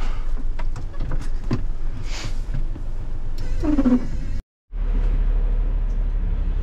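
Bin lorry's diesel engine running at a low rumble, heard from inside the cab, with rain and windscreen wiper noise and a short squeak about four seconds in. The sound cuts out briefly and gives way to a refuse truck engine idling steadily in the cab.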